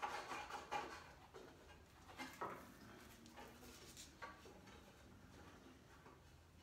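Faint knocks, taps and rubbing of small wooden pieces being pushed by hand into slots in a wooden hutch frame, busiest in the first second, with a few more knocks about two and four seconds in.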